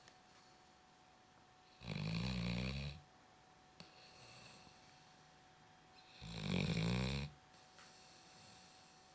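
Dog snoring in its sleep: two long snores about four seconds apart, each lasting about a second.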